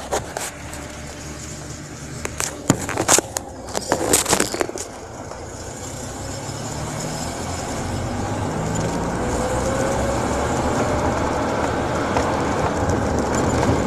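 Car engine and road noise heard from inside the cabin. Over the first few seconds there is a cluster of sharp clicks and knocks; after that the engine runs steadily and grows slowly louder, its note rising a little in the second half.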